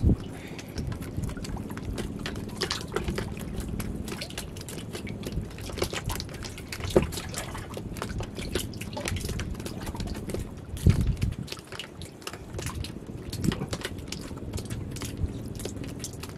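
Water splashing and dripping at the side of a small wooden boat as a handline is jigged and hauled, with a few dull knocks, the loudest about eleven seconds in, over a faint low hum.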